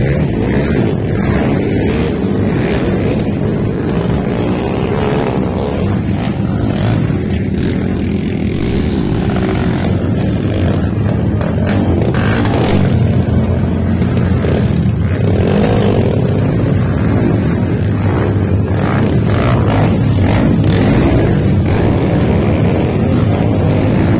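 Several racing motorcycles running and revving on a dirt track, a steady, continuous engine sound growing slightly louder toward the end.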